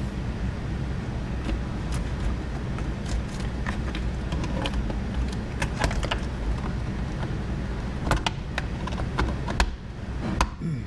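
Plastic clicks and taps as a rear-view mirror mount cover is handled and pressed back into place, over a steady low hum. The clicks come sparsely at first, then closer together and louder in the last few seconds.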